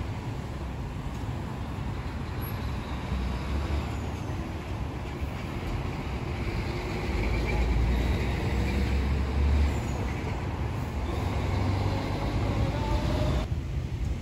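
Idling diesel engines of parked fire engines, a steady low rumble that swells for a few seconds midway.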